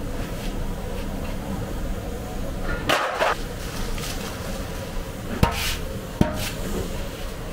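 Rice tipped from a perforated metal tray into a large aluminium pot of hot water: a rush and splash about three seconds in, then metal knocks of the tray against the pot near five and a half and six seconds, over steady background noise.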